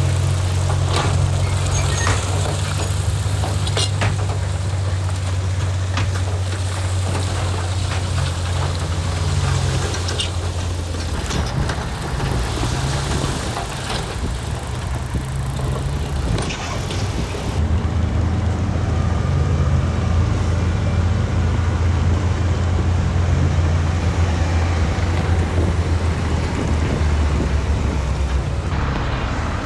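Heavy diesel engine of earthmoving machinery running under load with a steady low drone, easing about eleven seconds in and coming back strongly a few seconds later, with scattered metallic knocks in the first half.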